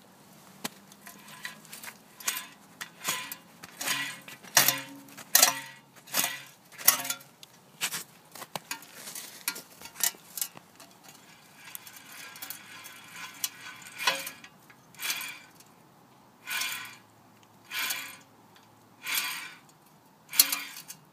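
Badly worn driver-side front wheel bearing on a 1999 Honda Accord, making a metallic grinding clank in repeated bursts, a little more than one a second at first and spacing out over the second half. The bearing is very bad.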